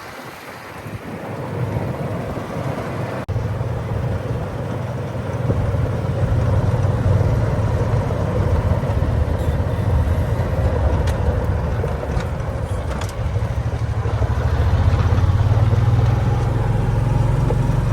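A motor vehicle's engine running steadily as it drives, a low rumble with road and wind noise that grows louder a few seconds in.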